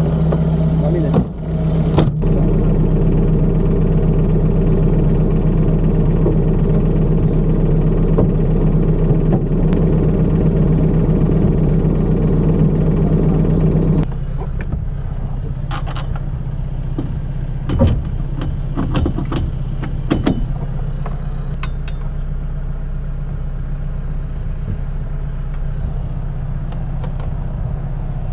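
Toyota Land Cruiser's engine idling steadily. About halfway through the idle drops in level, and a few sharp metal clicks and knocks sound over it.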